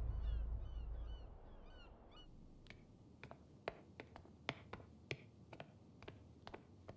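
Gulls calling in a string of short falling cries as music fades out, then footsteps on a stone floor, about two steps a second.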